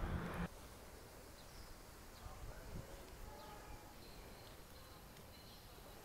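Faint outdoor ambience with a few short, faint bird chirps. A louder rumble of street noise cuts off abruptly about half a second in.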